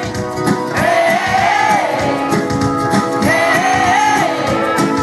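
Live pop-rock band playing, with the lead singer drawing out a long sung "hey" twice over drums and sustained chords.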